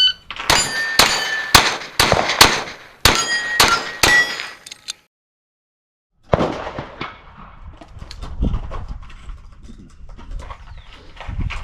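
A shot timer's start beep, then a rapid string of .22 rimfire pistol shots over about five seconds, the hits ringing off steel plates. The string cuts off abruptly, and after a second of silence there is quieter range background with faint cracks.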